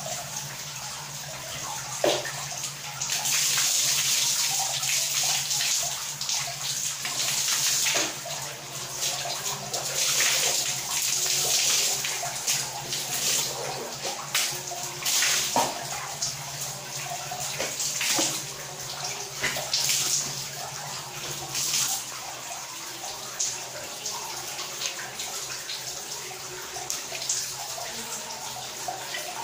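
Water splashing and pouring as a person washes for wudu, Islamic ablution, at a tiled bathroom water basin. It comes in irregular surges, busiest in the first twenty seconds or so, over a steady low hum that stops about two-thirds of the way through.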